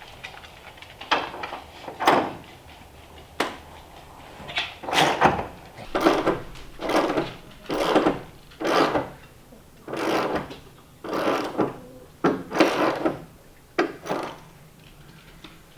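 Repeated rasping strokes of a hand tool working wood, about one a second, with a few sharp knocks among them.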